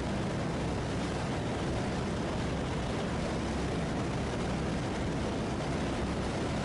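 Steady in-flight drone of the Just Aircraft SuperSTOL XL's engine and propeller, blended with an even rush of airflow noise.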